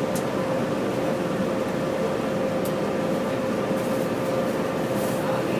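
Steady mechanical drone with a constant hum.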